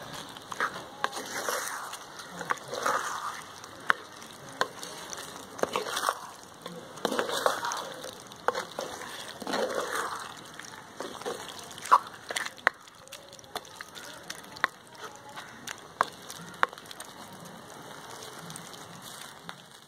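Wooden spatula stirring and scraping a thick mutton roast around an earthen clay pot, in repeated strokes, with scattered sharp clicks throughout.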